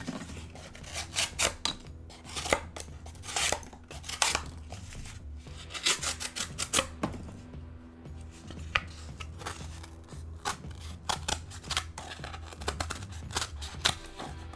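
WE Knife Co. Banter pocket knife, with its CPM S35VN steel blade, slicing through cardboard in a series of short, rasping cutting strokes. There is a brief lull about halfway through.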